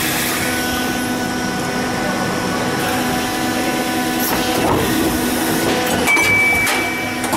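Injection moulding machine running a test cycle of a pail lid mold: a steady machine hum with several steady tones, then the mold opening about five to six seconds in, with a few clunks and a short high beep.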